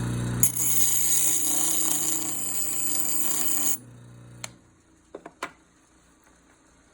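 Diamond dressing tool held against a spinning grinding wheel: a steady bright hiss over the grinder motor's hum as it dresses the stone to expose fresh, sharp grit. The hiss stops about four seconds in, the motor hum dies away soon after, and a few light clicks follow.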